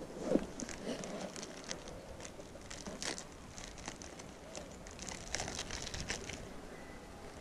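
Crinkling and rustling of a small packet being handled, with scattered short crackles throughout and heavier rustling in the first second.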